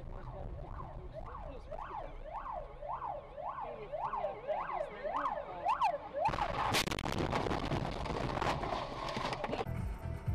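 An emergency-vehicle siren yelping up and down about twice a second. About six seconds in it is cut by a sudden loud crash: a sharp crack and a noisy crunching clatter that lasts about three seconds and then stops abruptly.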